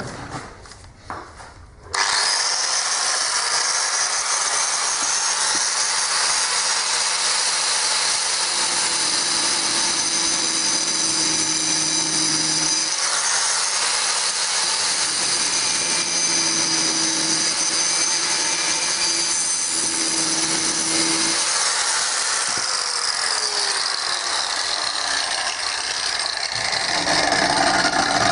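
Angle grinder switched on about two seconds in and running steadily with a high whine as it grinds away a seized screw on a broken grinder's gear housing.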